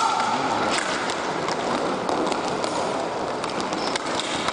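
Hockey rink game sounds: a steady wash of skating and scraping, with scattered sharp clicks and knocks of sticks and puck.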